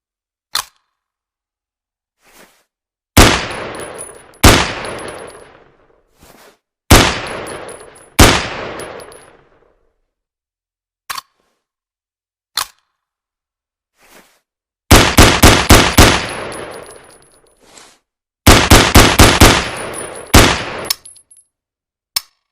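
Ruger 10/22 semi-automatic .22 LR rifle firing. Four single shots come a second or more apart, then two quick strings of about six shots each, every string trailing off in a long echo. Faint mechanical clicks fall in the pauses between.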